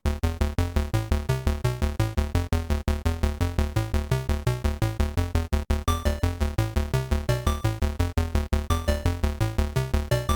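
Electronic intro music: a fast, even pattern of short synthesizer notes over a strong bass.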